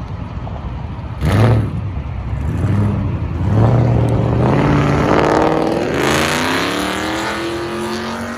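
Ford Mustang GT V8 with newly fitted long-tube headers revving. A sharp loud blip comes about a second in, then the engine pulls up through a rising rev and settles into a steadier, slowly climbing note.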